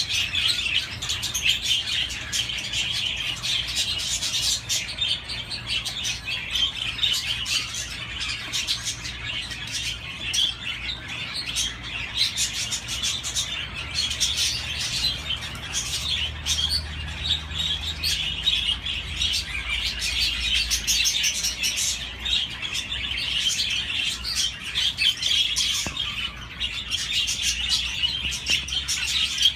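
Budgerigars chirping and warbling in a continuous, fast, twittering chatter with no pauses.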